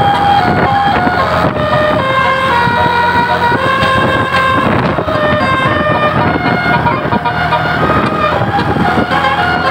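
Tour bus telolet horn playing a tune: a run of loud, held musical notes that step up and down in pitch every half second or so, over the rumble of the bus.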